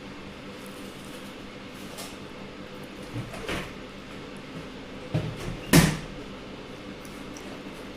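A few short knocks and clunks, the loudest a little past the middle, over a faint steady hum.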